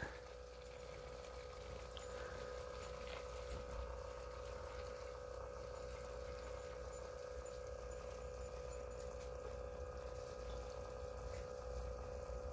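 Glycol circulation pump running with a quiet, steady hum, pushing glycol through the tubing into a fermenter's cooling jacket, with faint water sounds as air works out of the lines.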